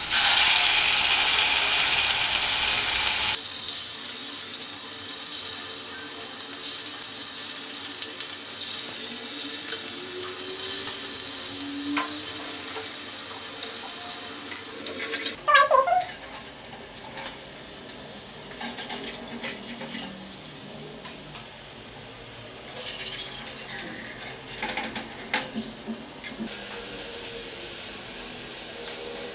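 Chicken pieces sizzling in hot coconut oil in a stainless steel pan, turned down to a low flame: loud at first, then dropping after about three seconds to a steadier, quieter sizzle. A few short knocks are heard along the way.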